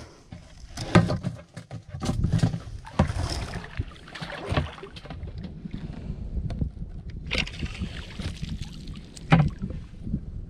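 Shallow water splashing and sloshing as a hand scoop net is swept through it and a person wades, with irregular sharp splashes, loudest about a second in and again near the end.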